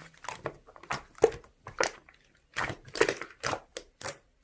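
Hands squeezing and poking slime: an irregular string of short crackling pops and clicks.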